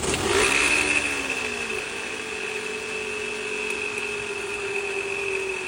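Car alternator whining under the hood: a steady high-pitched whine over a lower hum and a whirring haze, the sign of failing internal bearings or a failing voltage regulator.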